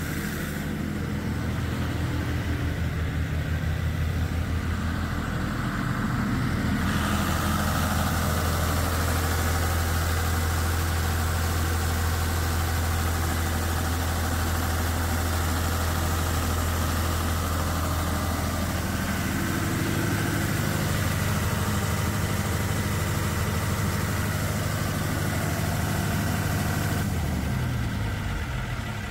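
Iveco turbocharged diesel engine of a 143 kVA generator set running at a steady speed. Near the end it slows and falls in pitch as the set is shut down from its control panel.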